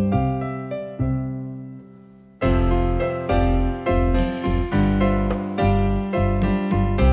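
Electric keyboards with a piano sound playing an instrumental passage: two chords that ring and fade away, then from about two and a half seconds in a louder, steady run of chords at roughly two a second.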